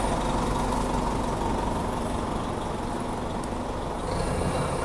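Nova Bus RTS city bus pulling away from the curb, its engine running and fading as the bus moves off, with a rise in level about four seconds in.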